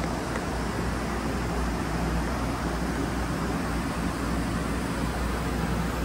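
Steady low mechanical hum under an even rushing noise, unchanging throughout.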